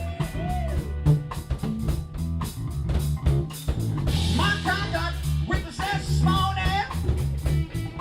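Live rock band playing: drum kit, electric guitar and bass guitar, with a high, bending melody line coming in about halfway through.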